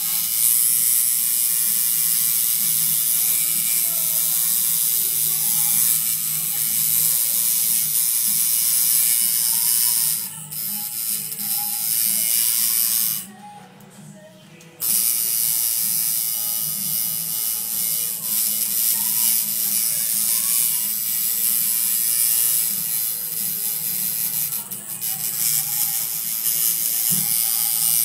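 Coil tattoo machine buzzing steadily as it needles ink into skin. It cuts out for about a second and a half just past the middle, then starts again.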